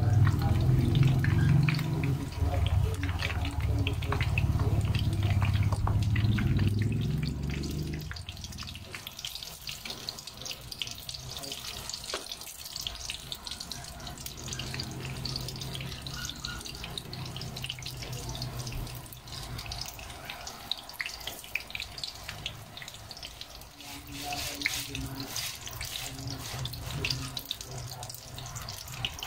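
Vegetable lumpia shallow-frying in hot oil in a pan: a steady crackling sizzle. A low hum underneath is loudest for the first eight seconds, then drops away.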